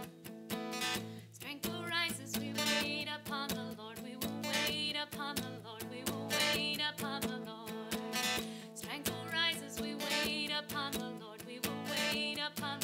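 Acoustic guitar strummed in a steady rhythm, with a woman singing a worship song over it from about two seconds in.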